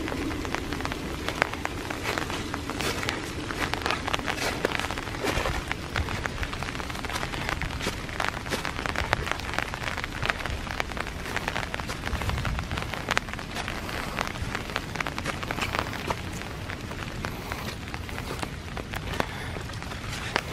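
Steady rain pattering, with a dense stream of small drip ticks, mixed with footsteps shuffling through wet fallen leaves.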